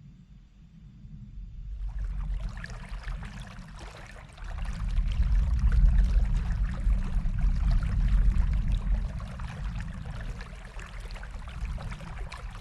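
River water flowing, a steady rushing that comes in suddenly about two seconds in, over a deep low rumble that grows louder about four seconds in.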